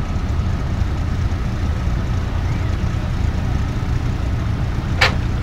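Car engines rumbling at low speed as a line of custom and classic cars crawls past. A single sharp click sounds near the end.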